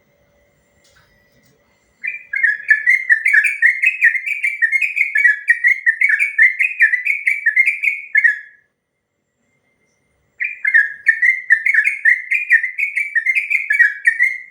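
Yellow-vented bulbul singing its long rolling song: a rapid run of short, down-slurred whistled notes that lasts about six seconds, then breaks off and starts again after a pause of about two seconds.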